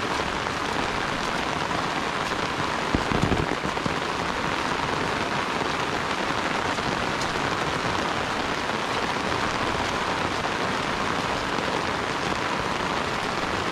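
Steady rain falling on an umbrella held close overhead, with one brief low thump about three seconds in.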